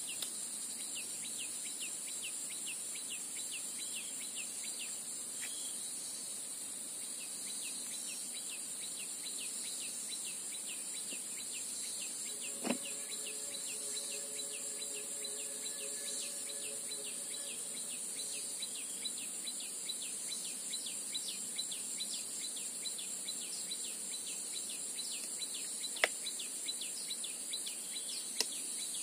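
Outdoor insect chorus: a steady high-pitched buzz with a rapid, even run of chirps several times a second. A sharp click about halfway through, followed by a faint low hum for a few seconds, and two more clicks near the end.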